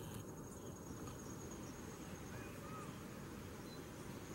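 Steady high-pitched insect trill over a low background hiss, with a few faint short chirps.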